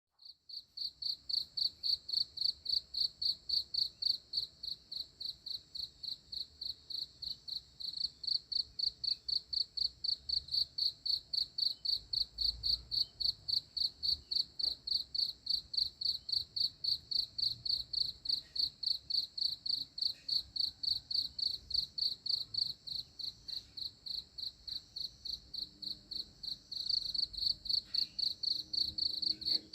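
Cricket chirping steadily in a high, even rhythm of about three chirps a second.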